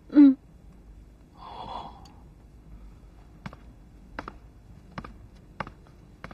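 A short "mm" answer and a breathy "oh", then a man's footsteps on a hard floor, an even step about every 0.7 seconds, as he walks away.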